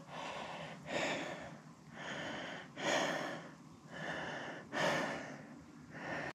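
A man breathing hard and deep, in and out about once every two seconds, catching his breath after a steep, tough climb to a summit.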